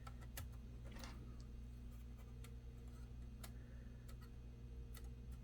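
Faint, scattered light clicks and a couple of brief soft rustles from hands working a laptop display panel and its double-sided tape, over a low steady hum.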